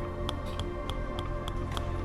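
Tok Sen wooden mallet tapping a wooden wedge in a steady rhythm, about three to four sharp taps a second, over background music.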